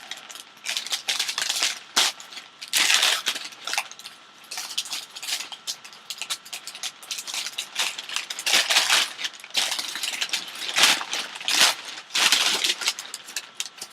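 Paper packing crinkling and rustling as it is pulled out and handled, in repeated irregular bursts of crackling.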